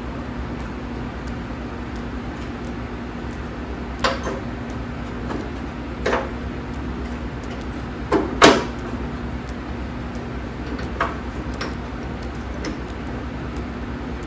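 Scattered knocks and clunks of parts being handled during attachment work on a John Deere 110 garden tractor, about five of them spread out, the loudest a double clunk about eight seconds in, over a steady low hum.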